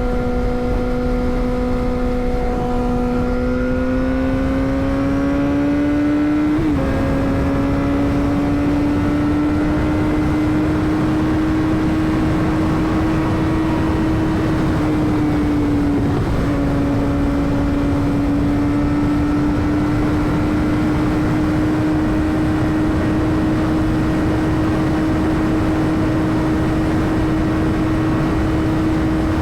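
Yamaha R6's 600 cc inline-four engine running at high revs with a steady, high-pitched note. The pitch climbs slowly over the first few seconds, drops briefly about seven seconds in and again about sixteen seconds in, then holds level.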